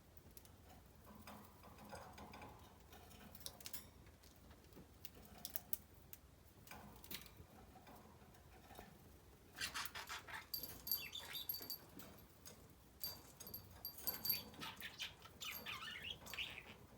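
Pet budgerigar making soft, high chirps amid small clicks and scratching sounds, busier from about ten seconds in.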